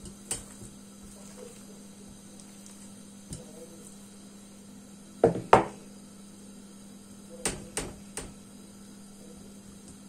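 Wooden rolling pin knocking against a wooden tabletop as it is handled and set down: a knock near the start, another about three seconds in, a louder double knock about halfway, then three quicker knocks. A steady low hum runs underneath.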